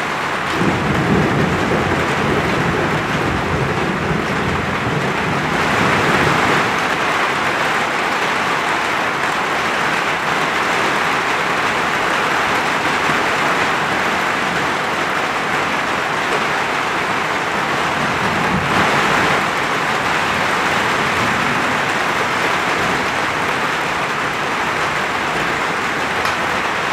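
Heavy rain falling steadily, getting louder about six seconds in. Low rolling thunder rumbles for several seconds near the start and again briefly later on.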